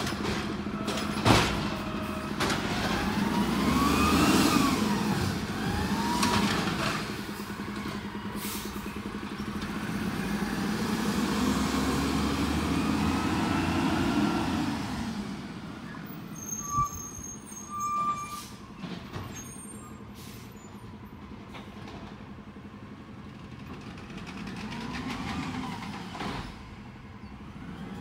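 Peterbilt 320 garbage truck with an Amrep automated side-loader body working on its route: its engine runs steadily and revs up and down several times, as it does when driving the loader's hydraulics. There is a sharp bang about a second in, and short air-brake hisses in the second half.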